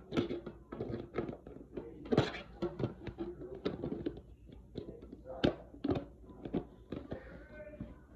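Scattered clicks, taps and knocks of small objects being handled, with faint voices behind them.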